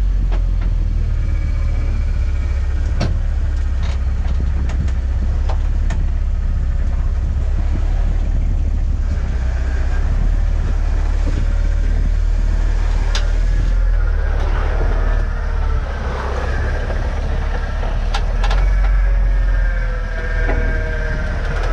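Off-road vehicle's engine running at low speed as it crawls over slickrock, heard as a heavy steady low rumble with scattered sharp clicks. A wavering higher whine joins in for the last several seconds.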